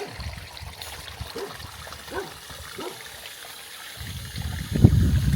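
Water trickling and splashing, with a louder low rumble near the end.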